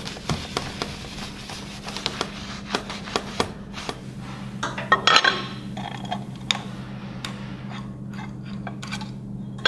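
Light metallic clinks and scrapes as a stainless steel cover plate and hex screws are handled and set on a CNC mill's table, with a louder cluster about five seconds in, over a steady low hum.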